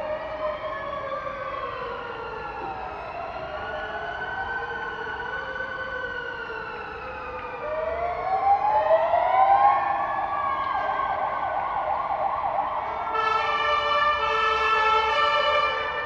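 Several fire engine sirens wailing at once, their pitches rising and falling slowly and overlapping. About halfway through a louder siren rises and warbles quickly. Near the end a steady chord of several held tones comes in.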